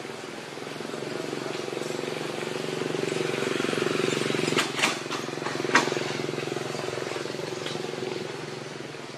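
A vehicle engine running steadily, growing louder toward the middle and fading near the end. Three sharp clicks come about halfway through.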